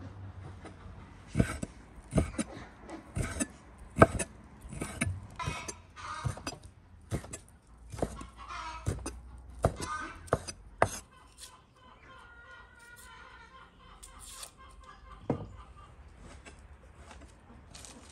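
Kitchen knives chopping raw beef into cubes on wooden cutting boards: a run of sharp, irregular knocks of the blade against the board, which thins out to a single chop later on.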